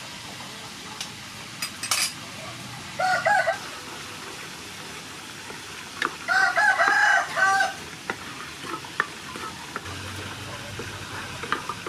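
A rooster crowing twice, a short call about three seconds in and a longer crow from about six to seven and a half seconds, over the steady sizzle of sauce frying in oil in a pan as a wooden spatula stirs it.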